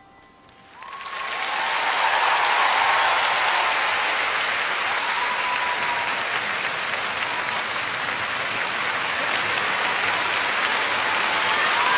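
Large arena audience applauding. It swells up about a second in and then holds steady.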